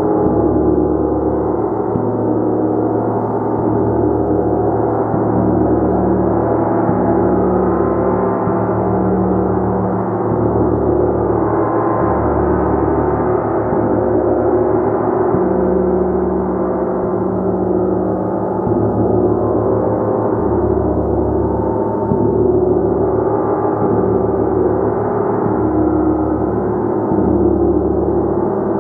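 A gong played continuously: a dense, steady wash of many overlapping ringing tones, with a soft low pulse swelling about every one and a half to two seconds.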